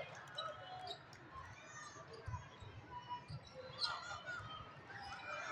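Spectators' chatter and calls from the stands during a volleyball match, with a few sharp knocks; the loudest is about four seconds in.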